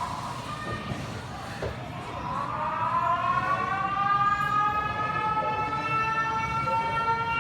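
A siren-like wail: one pitched tone that dips near the start, then rises slowly over several seconds and holds high.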